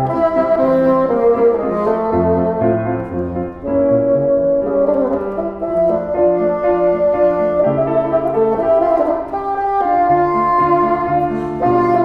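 Bassoon playing a melody of held and moving notes in its low and middle register, with piano accompaniment.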